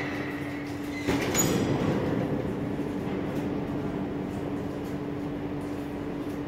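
Steady low machine hum under a rumbling background noise, which swells louder for a moment about a second in.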